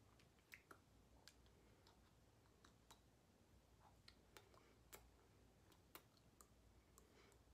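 Near silence: room tone with a faint low hum and faint, irregularly spaced small clicks.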